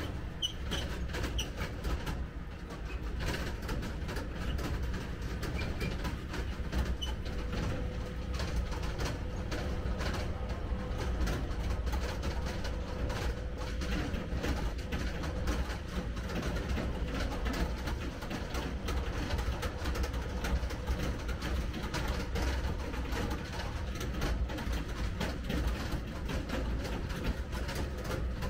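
Farm tractor's engine running steadily as the trailer it tows rattles and clatters over a gravel track. A few bird chirps come through in the first seconds.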